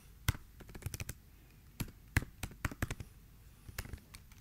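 Typing on a computer keyboard: an irregular run of key clicks, some struck harder than others.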